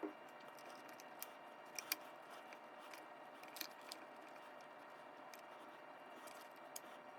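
Scattered light clicks and ticks of small parts and hand tools being handled while suspension links are fitted to a 1/24-scale RC crawler chassis, over a faint steady hiss. The clicks are sharpest and most closely bunched a little under two seconds in.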